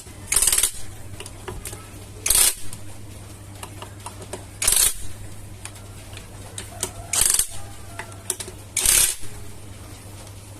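Socket ratchet wrench clicking in five short bursts about two seconds apart, as the CVT cover bolts are checked for tightness one by one.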